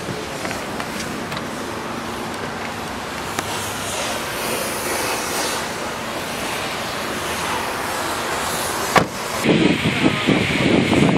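Steady traffic-like background noise with no clear engine note. About nine seconds in there is a sharp click, then wind buffets the microphone in irregular gusts.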